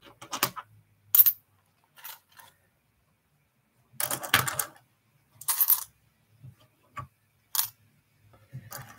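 Loose coins clinking and clattering as they are handled and dropped while a wallet is emptied: a string of short metallic clinks, with longer rattles about four seconds in and again a second and a half later.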